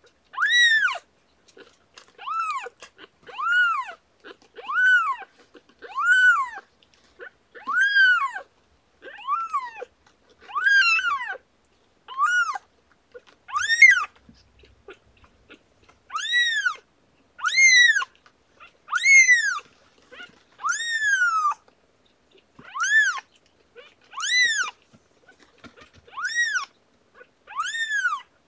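A newborn kitten, about ten days old, crying over and over, roughly one cry a second. Each cry is high-pitched and rises, then falls.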